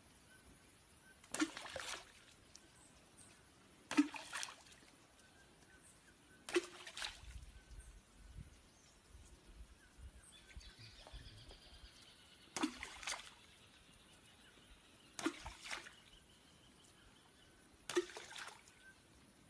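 Long wooden fishing pole slapped down onto the river surface: six sharp splashes, mostly about two and a half seconds apart with a longer pause in the middle, each with a short wash of water after it.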